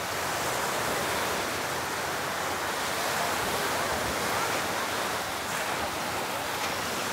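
Surf breaking and washing up the beach, a steady rush of waves that swells slightly midway.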